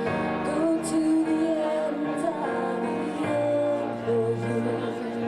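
A song performed live: a singer's voice over backing music with held notes.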